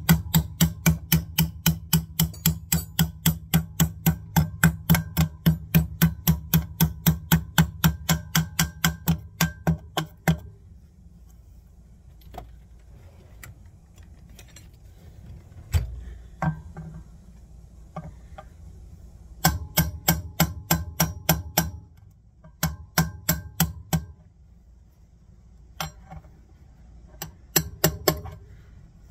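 Rapid, evenly spaced metallic clicking from a hand tool working a shim and bearing into a minibike's rear wheel hub, about four clicks a second for roughly ten seconds before it stops. A few lone knocks follow, and shorter runs of the same clicking come back about two thirds of the way through and again near the end.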